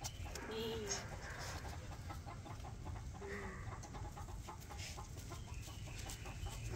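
Chickens clucking softly, with two short low calls, about half a second in and about three seconds in, over faint scratchy ticks.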